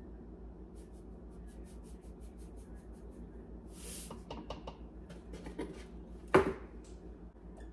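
Salt being measured out of a cardboard salt canister with a plastic measuring spoon: small scrapes and clicks of the spoon, and a brief hiss of salt tipped into the shaker cup about four seconds in. A single sharp knock comes about six and a half seconds in, as something is set down on the counter.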